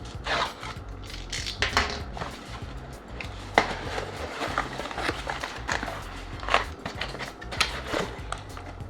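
A cardboard shipping box being cut open and unpacked: irregular sharp scrapes, rips and rustles, over background music with a steady beat.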